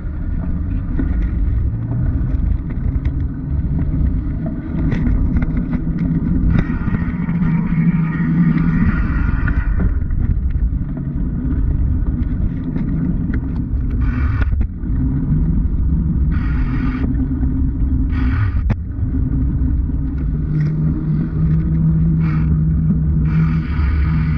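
Muffled, steady low rumble of a bicycle rolling over concrete and asphalt roads, heard through a sealed waterproof action-camera housing on the handlebar. An engine hum from passing motor traffic rises over it several times, strongest near the end.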